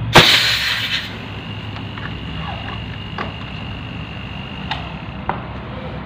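A sudden loud rush of hiss lasting about a second, followed by a few light clicks.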